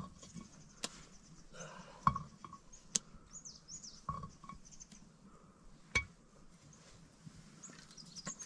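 A few sharp clinks of a metal ladle and spoon against metal pots and plates while food is stirred and served, with a few bird chirps in the background.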